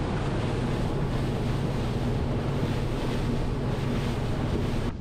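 Boat under way at sea: a steady engine drone under wind buffeting the microphone and water rushing past the hull.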